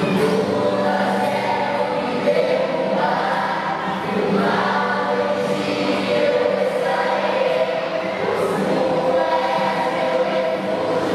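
A choir singing, many voices holding sustained chords that shift every few seconds.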